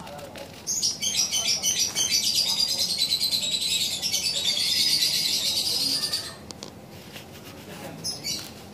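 A bird calling with a rapid, high-pitched trill that starts about a second in and stops after about five seconds.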